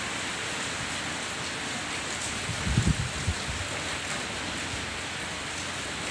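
Heavy typhoon rain falling steadily, a continuous hiss. About three seconds in, a gust of wind briefly buffets the microphone with a low rumble.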